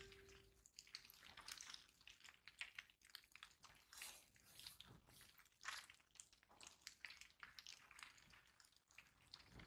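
Near silence with faint, irregular crackling clicks.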